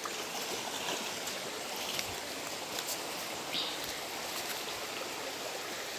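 Shallow stream running over rocks: a steady rush of water, with a few faint small knocks.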